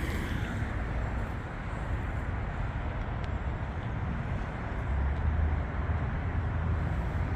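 Steady road traffic noise: an even hiss over a low rumble, the rumble growing a little stronger about five seconds in.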